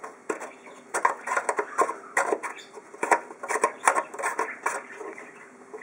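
Irregular clicks and scrapes of fingers handling and turning the rusty metal fuel cap on a Briggs & Stratton engine's fuel tank, several sharp clicks a second.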